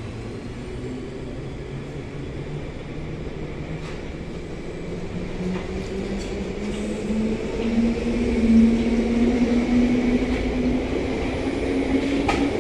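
London Underground Bakerloo line 1972 Stock train pulling out of the platform, its traction motors whining in a tone that climbs steadily in pitch as it gathers speed. The running noise grows louder as the cars pass close by.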